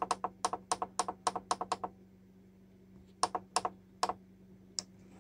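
A slow cooker's timer button being pressed repeatedly to step the cook time up: a quick run of about ten clicks over two seconds, then three more presses after a pause.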